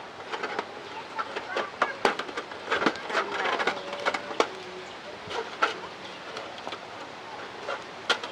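Scattered sharp clicks and taps of scissors against a metal tray, with short bird calls over them.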